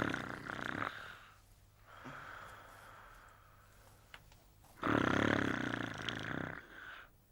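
A person snoring loudly in deep sleep: one long snore fades out about a second in, a quieter in-breath follows, then a second long snore runs from about five seconds in to six and a half.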